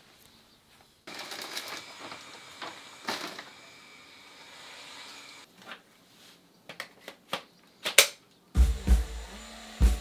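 Sharp plastic clicks and clatter as a pet nozzle is fitted to an LG CordZero A9S cordless stick vacuum, after a few seconds of hissing noise. About eight and a half seconds in, background music with a drum-kit beat starts.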